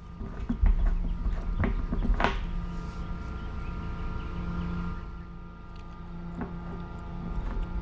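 Scattered light knocks and clicks of plastic pipe fittings being handled and twisted together, over a steady mechanical hum.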